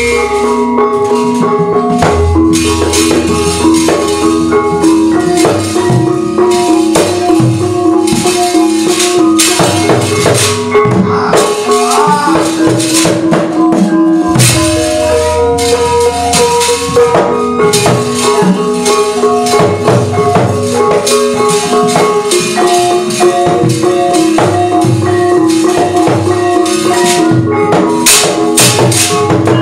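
Javanese gamelan music accompanying a wayang kulit puppet-movement (sabet) scene. Ringing metallophone notes and drum are cut through by sharp, rattling metallic strikes on the dalang's keprak plates, which come thickest in two spells of puppet action.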